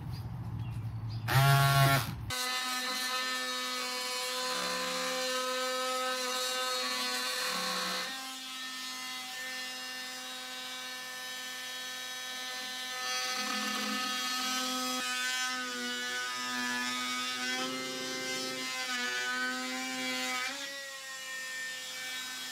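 Corded oscillating multi-tool running with a steady high buzz as its blade cuts into a wooden frame piece. The pitch wavers now and then as the blade takes load. A brief loud burst of sound comes about a second and a half in, before the tool is heard.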